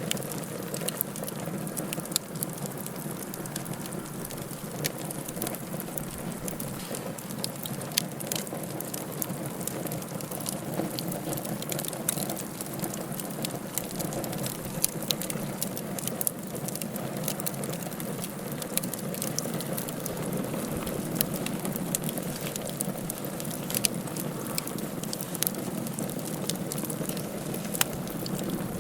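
Wood fire burning in a fireplace: a steady low rush with frequent irregular sharp crackles and pops.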